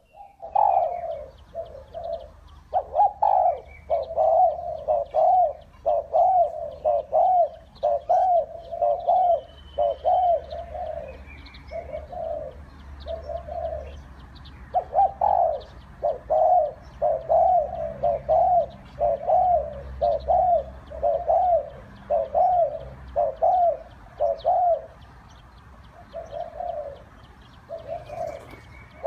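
Spotted dove cooing over and over: a long run of low, repeated coos in quick phrases, broken by a couple of brief pauses. Faint chirps from other small birds sound higher up.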